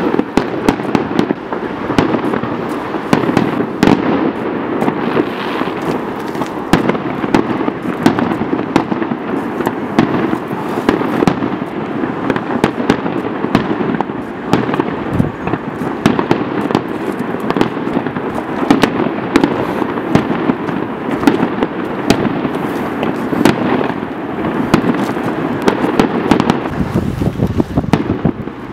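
Fireworks display: a continuous barrage of shell bursts, with many sharp bangs and crackles, one after another over a steady rumble.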